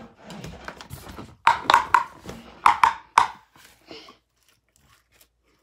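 Handling noise: a handful of sharp knocks and clicks in two quick clusters, as plastic slime containers are picked up and moved about on a wooden floor.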